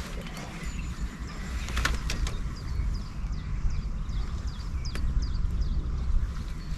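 A small bird chirping, a quick run of short high notes, over a steady low rumble. A few sharp clicks come in between.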